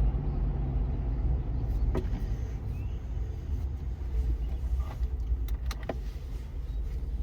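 Ford Bronco running, a steady low engine and road rumble with a few light clicks and knocks.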